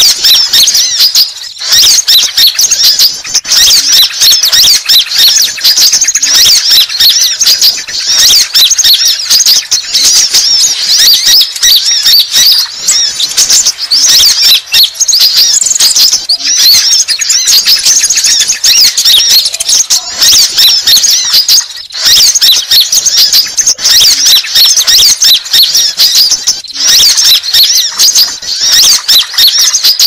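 Konin sunbirds calling: a loud, unbroken stream of rapid, high-pitched chirps and twitters, many calls overlapping, in a lure-call recording meant to draw sunbirds in.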